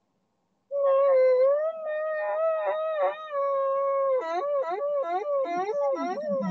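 A long howl starts about a second in and is held on one pitch for about three seconds. It then breaks into quick wavering swoops, about three a second.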